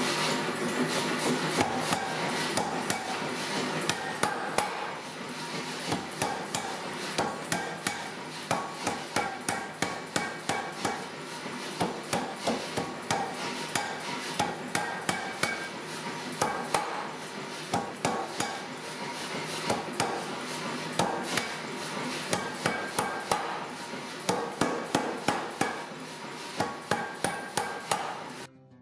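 Power hammer repeatedly striking a hot Damascus steel billet in quick runs of blows, drawing it out towards a square bar. The machine's steady running noise carries on between the strokes.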